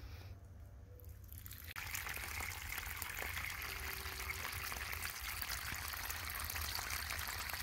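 A steady rushing hiss like running or spraying water, starting abruptly about two seconds in and cutting off abruptly near the end.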